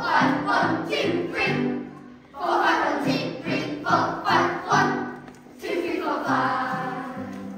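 Children singing together with music, in phrases of held notes broken by brief pauses.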